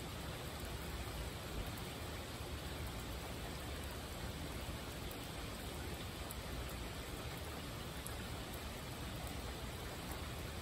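Steady rainfall: an even hiss of rain that keeps the same strength throughout.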